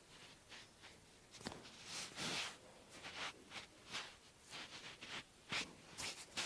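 Hands massaging bare skin: a run of short rubbing strokes and a few sharp slaps or clicks, irregularly spaced.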